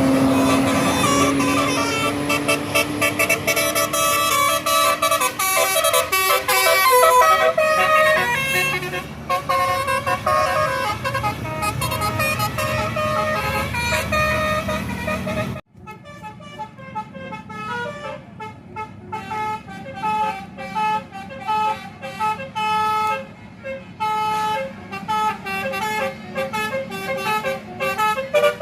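Tour bus telolet horn, a set of tuned air horns, playing quick runs of melodic toots over vehicle noise. About halfway through the sound cuts off abruptly, and a quieter run of the same kind of rapid horn notes follows.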